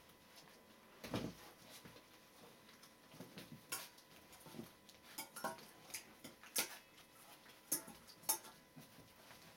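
Stainless steel dog bowl clinking and rattling as puppies and their mother nose and lick at it, in a string of irregular sharp clinks.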